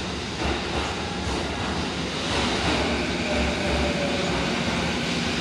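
Sanyo Electric Railway commuter train pulling out of an underground platform: a steady rumble of motors and wheels, with a faint whine about halfway through.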